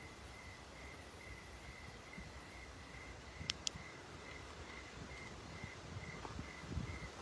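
Night insect chirping steadily, a short chirp about two and a half times a second, over a low rumble. Two sharp clicks in quick succession about halfway through.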